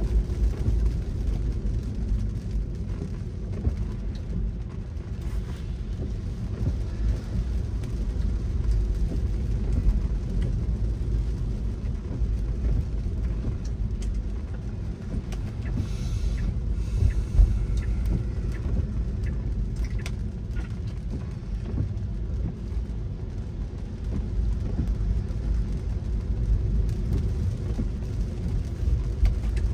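Car driving on wet roads in the rain: a steady low road-and-engine rumble with scattered light ticks, and a brief hiss about sixteen seconds in.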